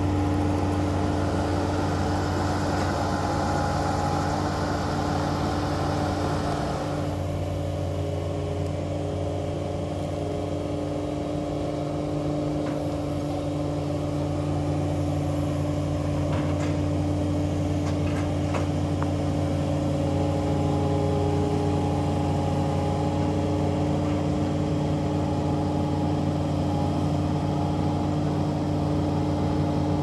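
A Takeuchi TL8 compact track loader's diesel engine running at a steady speed. A hiss over it drops away about seven seconds in, and a few faint clicks follow later.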